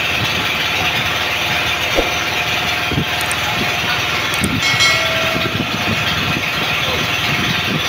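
Fishing boat's engine running steadily under a rushing wash of sea water, with a few dull knocks about two and three seconds in.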